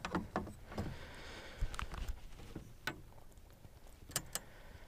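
Scattered light clicks and knocks of fishing rods and tackle being handled in a boat, with a brief soft rustle about a second in and two quick clicks near the end.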